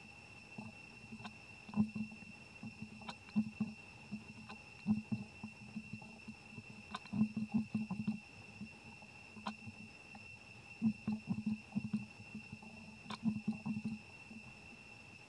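Macaque mother and infant up close: clusters of short, low grunting pulses, several in quick succession every second or two, with a few sharp ticks, over a steady high-pitched drone.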